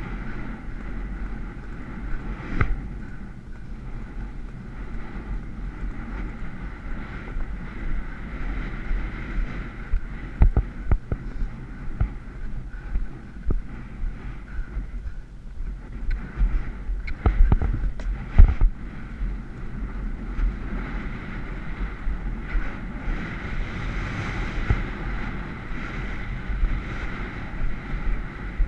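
Wind rumbling over a helmet-mounted camera's microphone as a horse gallops across turf, with rhythmic hoofbeats and the jolt of each stride, and a few sharper knocks about a third and two-thirds of the way through.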